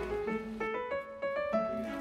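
Background music: a piano melody of short notes in quick succession.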